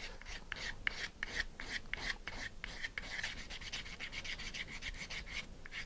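Sandpaper rubbed in quick, even back-and-forth strokes over the edge of a small plywood part, rounding off its square corner into a slight radius.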